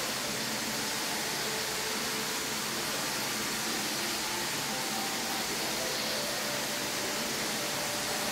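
A steady, even hiss with no distinct events, with faint short tones underneath.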